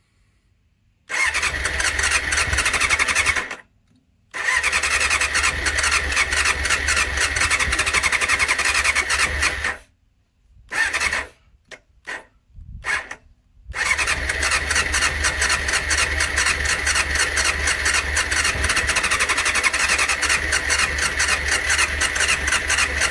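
1989 Honda CBR600's electric starter cranking its inline-four engine in three long bursts with a few short blips between them, with a pulsing, whining turn-over. The engine is trying to fire but does not catch.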